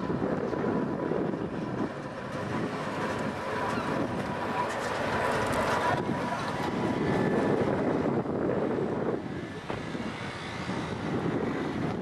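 Vintage two-axle tram (Hawa-built museum car 265) rolling past on its rails, a continuous rumble of wheels and running gear, with a thin steady high whine in the first half that fades out as it passes. Wind noise on the microphone.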